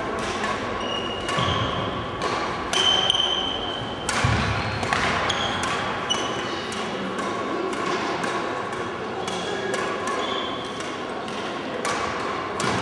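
Badminton play in a reverberant sports hall: sharp racket-on-shuttlecock hits, many in quick succession, and short high squeaks of shoes on the wooden floor, over a murmur of voices.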